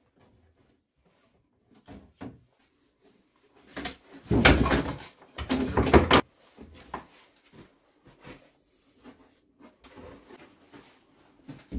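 Bar clamps, the plywood bending form and a bent wooden strip being handled: two loud spells of clattering and knocking about four and five and a half seconds in, with lighter knocks before and after.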